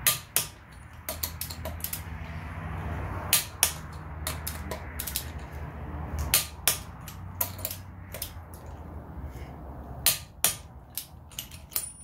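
Torque wrench set to 80 foot-pounds on a car's wheel lug nuts, clicking as each nut is brought to torque: sharp clicks, singly and in short quick clusters, spread all through.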